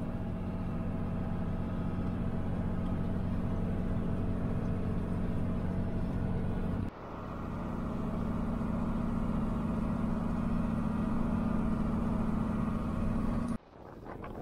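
Diesel farm tractor engine running steadily under load while pulling a seed drill, a constant low drone. It breaks off abruptly twice, about halfway through and near the end, with wind noise on the microphone in the last moment.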